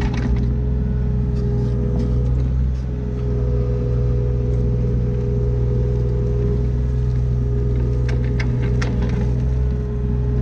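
Diesel engine of a John Deere 35D mini excavator running steadily under work, with a cluster of sharp clacks about eight seconds in.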